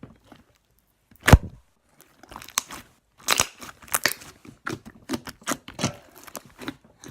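Slime being handled by hand: irregular wet pops and crackles, with one sharp, louder knock about a second in.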